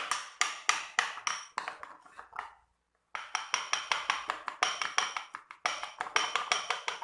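A utensil striking the side of a bowl, about five ringing clinks a second, as a yogurt, vinegar and baking-powder mixture is stirred briskly. The clinking breaks off briefly near the middle, then carries on at the same pace.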